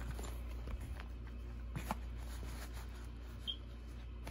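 Soft rustling and a few light clicks of a black fabric backpack and its contents being handled, over a low steady hum.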